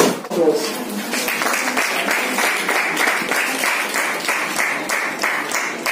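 A group clapping together in a steady rhythm, about three claps a second, starting about a second in, after a brief voice.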